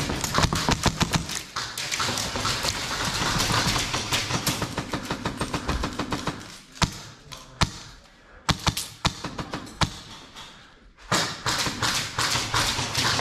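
Airsoft guns firing in rapid strings of sharp cracks, with BBs smacking off walls and barriers. The shooting thins to scattered single shots around the middle, then turns heavy again near the end.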